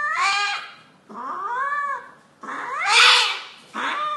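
Domestic cat held down for an injection, yowling in distress: four long yowls that rise and fall in pitch, the loudest about three seconds in.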